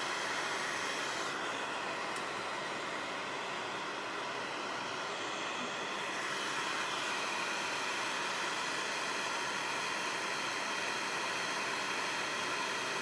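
Gas torch flame burning with a steady hiss, keeping a graphite ingot mold hot for a silver pour.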